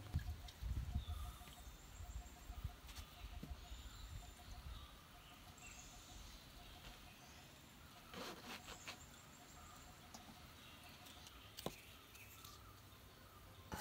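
Faint outdoor ambience with birds chirping and a fast, evenly pulsing call repeating throughout. A few low thumps in the first seconds and a few light clicks later on.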